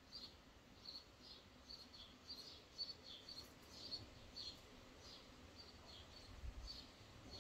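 Near silence: room tone with faint, short, high bird chirps repeating irregularly, several a second.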